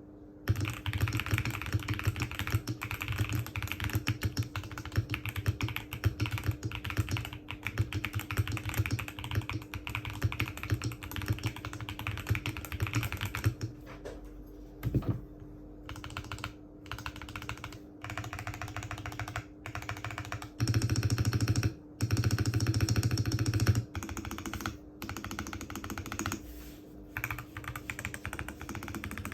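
Typing on a Mode Sonnet custom mechanical keyboard with Wuque Studios Brown tactile switches in an FR4 plate and PBT keycaps: a fast, continuous run of key clacks. About halfway through, the typing breaks into shorter runs with brief pauses.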